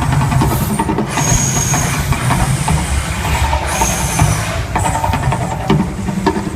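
Las Vegas volcano show effect: a loud, continuous deep rumble with short bursts of hiss breaking in several times.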